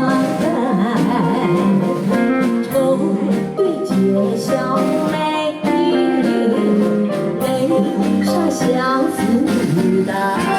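A song playing: guitar accompaniment with a singing voice.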